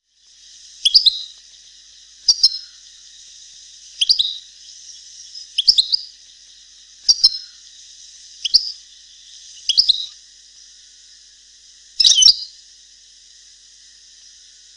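European goldfinch giving short, high, chirping call phrases, one about every one and a half seconds, eight in all, over a steady hiss. It is a Palestinian-dialect goldfinch recording used to tutor young birds.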